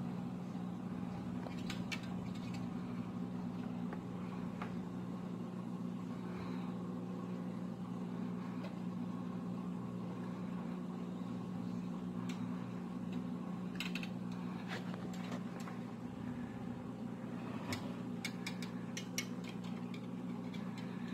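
Steady low electrical hum of running aquarium equipment, with a few faint clicks and taps scattered through it and a small cluster near the end.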